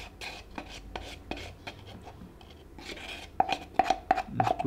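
Metal spoon scraping and clicking against the inside of a plastic cup in quick repeated strokes, working thick plaster of Paris paste out of it. A steady tone joins about three and a half seconds in.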